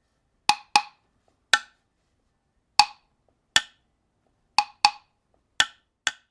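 Hand percussion like a wood block struck alone, about nine dry knocks in an uneven, unhurried pattern, as a song's intro.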